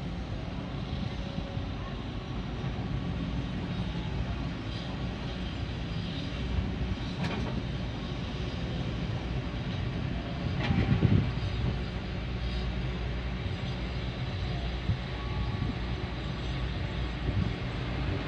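Heavy diesel engine of construction machinery running steadily, with a brief louder rumble about eleven seconds in.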